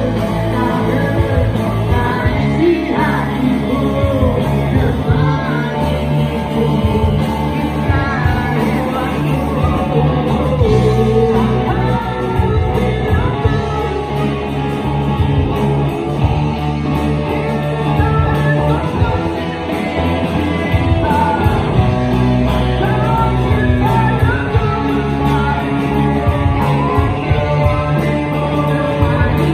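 Indie rock band playing a song live, with a singer's voice over the band.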